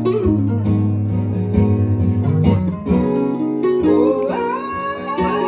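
Acoustic guitar played solo. A male voice comes in singing about four seconds in.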